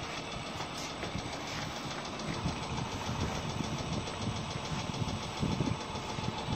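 Oil filling machine running steadily with a low mechanical rumble.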